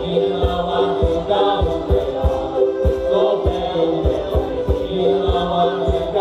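Madeiran folk music: a group singing together over a steady low beat of about three to four thumps a second.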